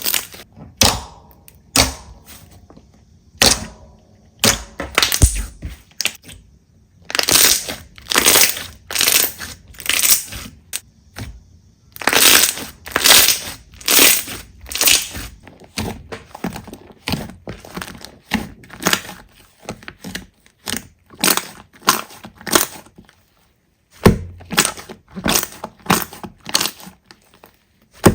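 Slime being squeezed and pressed by hand, a run of crackling, crunchy squishes, one or two a second, with a few brief pauses.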